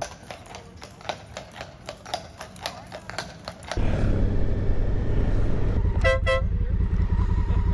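A vehicle horn toots twice in quick succession, about six seconds in, over a loud low rumble that starts about four seconds in. Before the rumble there is a run of irregular quiet clicks.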